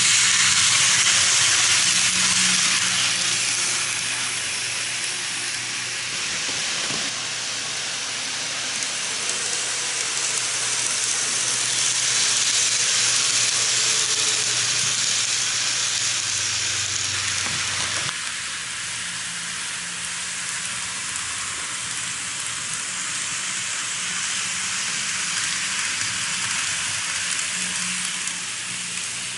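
N-gauge model electric trains running on the track: a steady hiss of small motors and metal wheels on rail, over a low hum. The level shifts twice.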